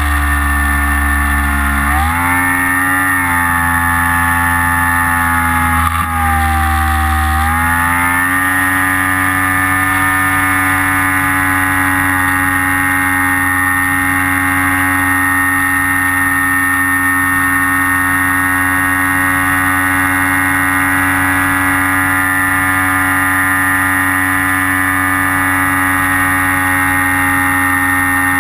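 Electric motor and propeller of an FPV aircraft droning steadily. The pitch rises about two seconds in with a throttle increase, dips, rises again around seven seconds in, then holds level.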